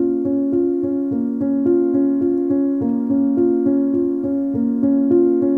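Background keyboard music, piano-like: an even stream of notes, about three or four a second.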